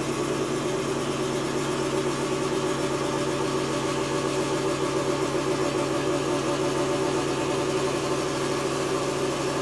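A home candyfloss (cotton candy) machine running, its small electric motor spinning the heated sugar head with a steady hum.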